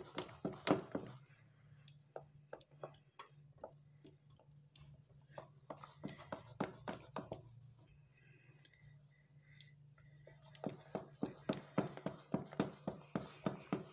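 Wooden rolling pin beating buttercream (butter and icing sugar) against a plastic bowl: runs of short knocks, about four a second, with a quieter pause a little past the middle.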